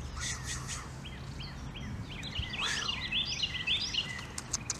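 Wild birds chirping over steady outdoor background noise: a few short high chirps at the start, then a quick run of repeated chirps in the middle. A few light clicks near the end.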